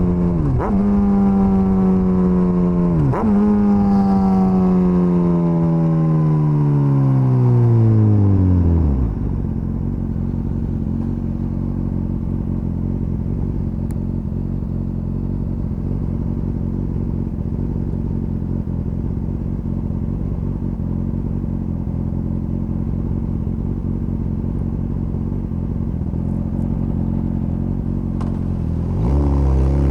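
Suzuki GSX-S1000's inline-four engine running down with falling revs as the bike slows, its note breaking briefly twice early on. It then idles steadily for about twenty seconds, and near the end it revs up again as the bike pulls away.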